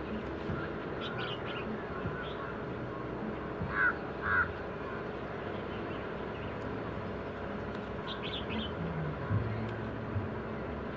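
A bird calling twice in quick succession about four seconds in, with small birds chirping briefly near the start and near the end, over a steady outdoor background hum.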